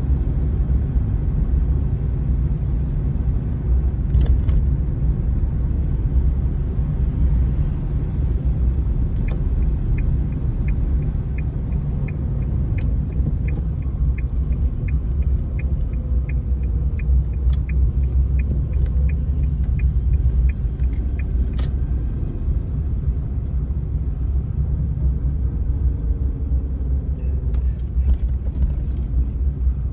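Steady low rumble of a car driving, heard from inside the cabin. From about nine seconds in, a regular ticking of about two or three ticks a second runs for about twelve seconds and ends with a sharper click.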